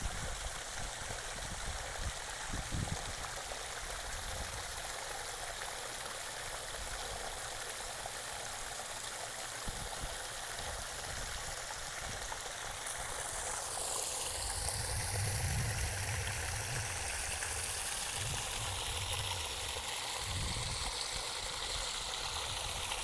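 Water from a pond pump's outlet running steadily over rocks into the pond, a small man-made stream that keeps the pond water aerated. A low rumble joins in about two-thirds of the way through.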